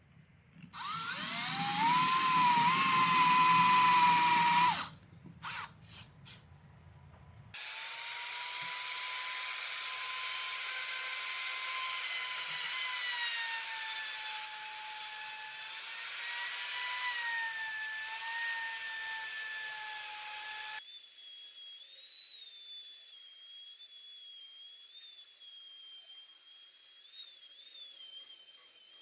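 Handheld electric power tool with a high motor whine: it spins up about a second in, runs loud and stops after about four seconds, then gives three short blips. It starts again and runs more quietly with its pitch dipping and recovering as it is loaded, then drops to a fainter, higher, wavering whine about three quarters of the way through.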